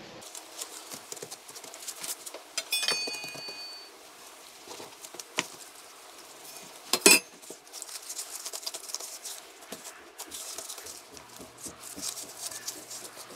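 Gloved hands handling pizza dough on a floured metal baking tray: soft taps, rustles and light knocks against the tray, with a short metallic ring about three seconds in and a sharp knock about seven seconds in.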